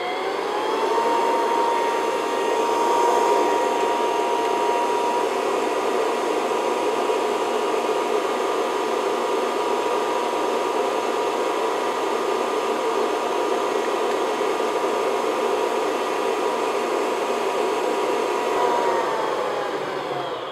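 Stand mixer motor running at medium-high speed, its wire whisk beating egg whites and sugar toward stiff, glossy meringue peaks. A steady whine that winds up in pitch about a second in and winds down near the end as the mixer is switched off.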